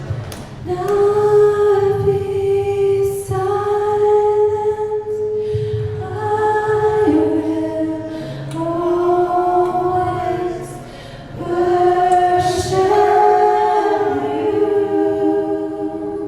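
Voices singing a slow worship song in long held notes that change every second or two, with little or no accompaniment.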